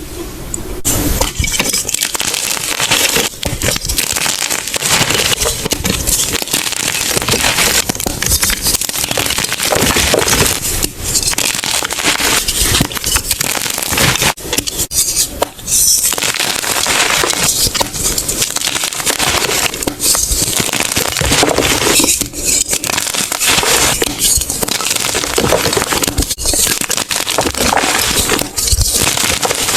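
Gym chalk being crushed by hand, a dense, loud, continuous crunching crackle of many small snaps that starts about a second in.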